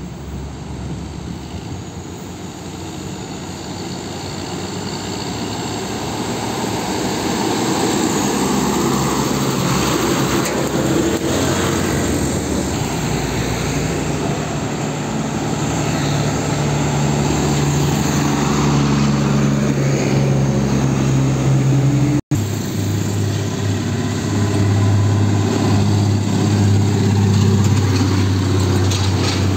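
Heavy diesel trucks driving past on a city road, the engine noise growing louder over the first several seconds as a truck approaches. After a brief break about 22 seconds in, a truck's diesel engine runs close by with a strong, steady low engine note as it passes.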